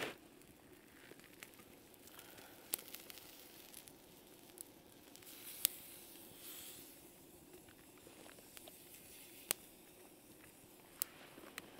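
Campfire crackling faintly, with about half a dozen sharp pops spread through and a soft hiss underneath.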